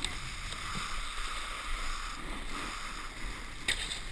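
Snowboard sliding over packed snow, a steady scraping hiss, with wind rumbling on the microphone. A short sharp knock about three and a half seconds in.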